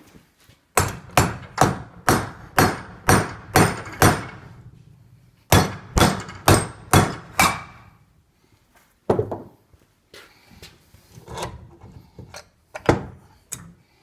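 Hammer blows tapping a Nuffield tractor's front wheel hub home onto its stub axle over the new hub seal: a run of about eight sharp strikes, roughly two a second, then five more after a short pause, and a few single knocks later on.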